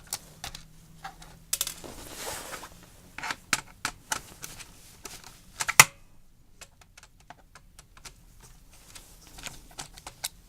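Irregular plastic clicks and taps from an HP computer keyboard being handled and unscrewed with a screwdriver, with a brief scrape about two seconds in and one sharper click near the middle.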